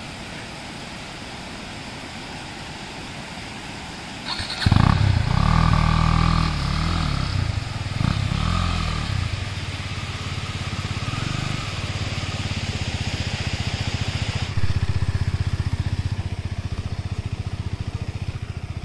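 A motorcycle engine starts about four seconds in, revs up and down a few times, then keeps running steadily, a little louder from about fifteen seconds in.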